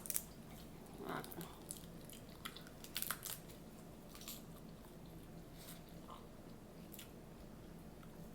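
Close-miked eating from a seafood boil: chewing with scattered crunches and sharp clicks at irregular moments.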